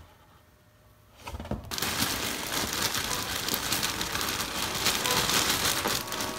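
Dry cereal rustling and crackling in a cardboard cereal box as a small doll is pushed down into it: a dense crackle of many small clicks that starts a little over a second in and keeps going.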